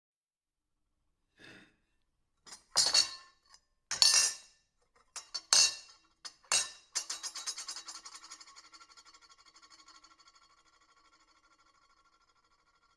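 Silverware clinking against a plate in a string of sharp strikes, then a fast rattle that dies away over about five seconds, leaving a ringing tone.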